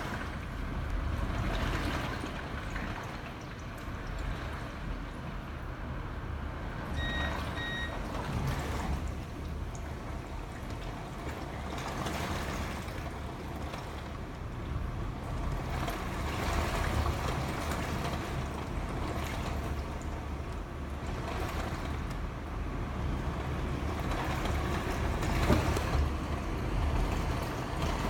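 Hurricane wind and driving rain buffeting a building: a steady, deep rushing noise that swells and eases with the gusts. Two short high beeps sound about seven seconds in.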